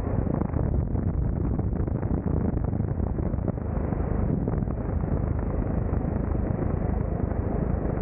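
Hovering helicopter's rotor and engine noise, mixed with wind buffeting a microphone mounted outside the cabin by the skid, a steady dense rumble.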